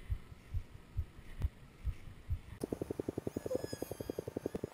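Slow, regular low thumping, about two beats a second; about two and a half seconds in it switches abruptly to the electric motor and propeller of a scratch-built RC F-22 jet buzzing in flight, a rapid even pulsing with a thin wavering whine above it.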